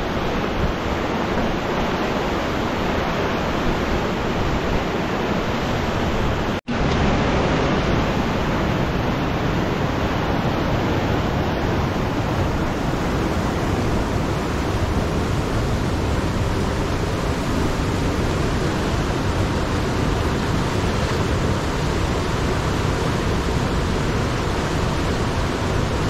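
Steady rushing of a fast river running through rapids, a constant loud noise with one brief dropout about six and a half seconds in.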